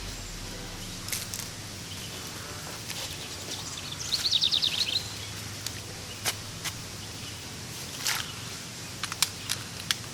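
Outdoor ambience with a bird twittering in a quick run of chirps about four seconds in, and a few scattered sharp clicks.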